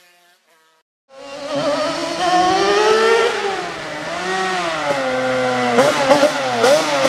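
Yamaha TDR 385 YPVS two-stroke twin through a 2-into-1 exhaust, starting about a second in and revving up and down repeatedly as the bike rides up the street, growing louder.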